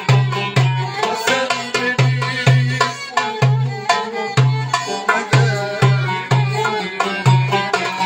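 Live instrumental Turkish folk dance tune: a darbuka keeps a steady beat of deep dum strokes about twice a second, under a bowed violin melody and a plucked banjo-like lute.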